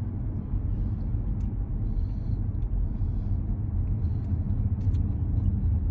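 Steady low rumble of a motor vehicle, as heard inside a car cabin, with a few faint clicks and rustles over it.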